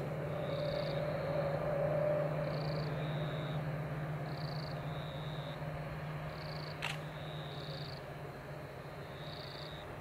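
Distant diesel locomotives of an approaching train running with a steady low drone. A faint high two-note chirp repeats about every two seconds, and there is a single sharp click about seven seconds in.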